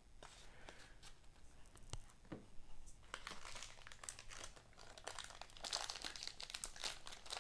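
Faint crinkling and tearing of a trading-card pack wrapper being torn open by hand, busier from about three seconds in, with a few light clicks of cards being set down before it.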